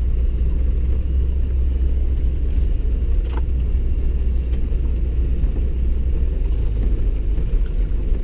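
Steady low rumble of a vehicle driving slowly over a snow- and ice-rutted road, engine and tyre noise heard from inside the cab.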